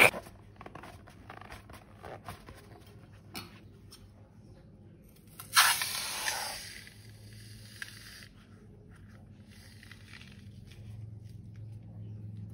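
Faint rustling and clicking of hands handling slime-making materials, with a louder hissing rustle about five seconds in that fades over a second or so.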